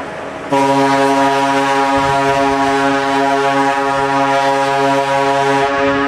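MS Marco Polo's ship horn sounding a long, loud blast: a deep chord of several steady tones that comes in strongly about half a second in and holds. The lowest tone drops out shortly before the end while the higher tones keep sounding.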